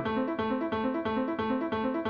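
Instrumental music: a piano-toned keyboard playing a fast, even pattern of broken-chord notes, about five or six a second, just after the low held notes stop.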